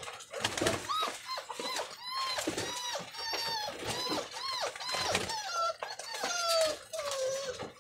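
Pigeons calling in a quick string of short rising-and-falling notes, several a second, with wing flapping among the birds on the wire floor.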